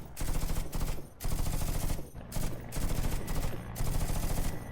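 Automatic gunfire in several rapid bursts with short breaks between them, a battle sound effect.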